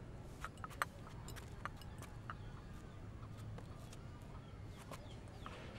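Faint ambience: birds chirping in the distance over a low steady hum, with a few small scattered clicks and knocks.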